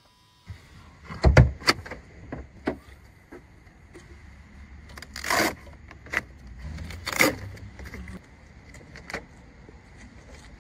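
Knocks, clicks and rustling of a car's hood being unlatched and lifted beneath a fabric protective cover, with a heavy thump about a second in and two longer scraping rustles in the middle.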